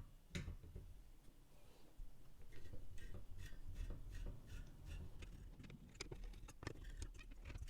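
Faint, irregular small clicks and scrapes of a screwdriver working the screws that hold a heatsink on an Antminer Z15 hashboard, the clicks most frequent from about two seconds in.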